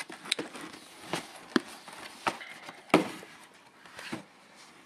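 Handling noise: a series of irregular sharp clicks and knocks with a light rustle, about seven in all, from the camera and the cardboard compressor box being moved about.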